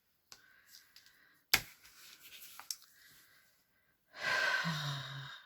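Quiet handling of things on a work table: one sharp tap about a second and a half in and a few faint clicks, then a breathy exhale with a short low hum near the end.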